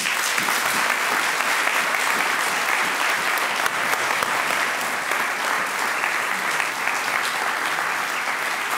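Audience applause: many people clapping steadily, starting all at once.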